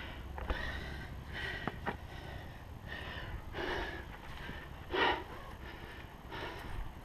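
A climber breathing hard, close up: a run of short, quick breaths about every second, with the loudest, a sharp exhale, about five seconds in.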